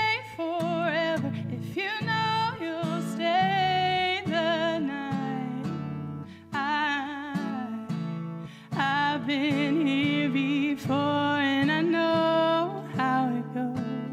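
Music: acoustic guitar strumming chords under a sung melody with long, wavering held notes.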